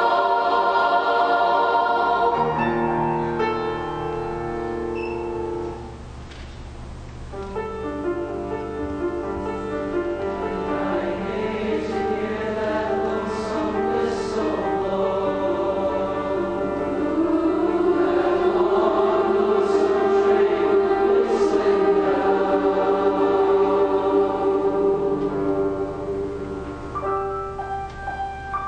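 Massed middle-school choir singing held chords with piano accompaniment. It drops to a softer passage about six seconds in, then swells to its fullest over the middle and later part, easing off near the end.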